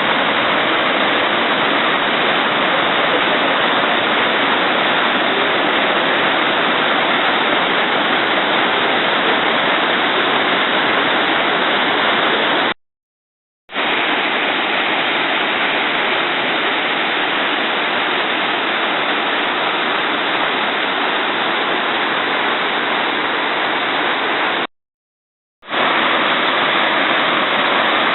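Kegon Falls' water plunging into its pool: a loud, steady rush of falling water. It cuts out completely for about a second twice, about 13 and 25 seconds in.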